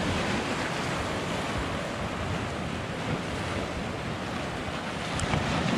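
Sea waves washing and breaking over shoreline rocks, a steady rush of surf.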